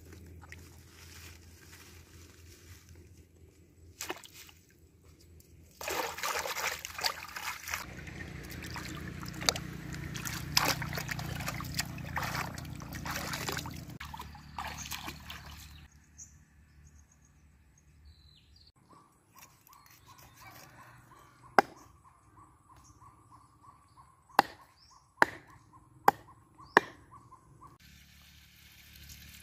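River water sloshing and splashing as vegetables are rinsed by hand in the shallows. It is loudest for several seconds early on, then dies away, and several sharp clicks follow near the end.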